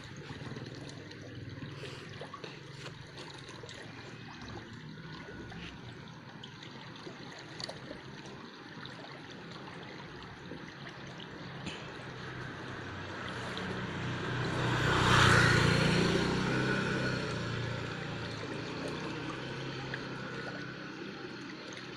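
Steady trickle of water running in a drain. About two-thirds of the way through, a louder rumbling noise swells up and fades away over several seconds.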